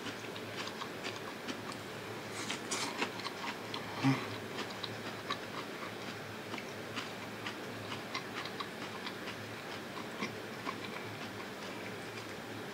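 A person chewing a mouthful of beef and vegetable rice bowl: soft wet mouth clicks throughout, a few louder crackles a few seconds in and a brief low hum about four seconds in.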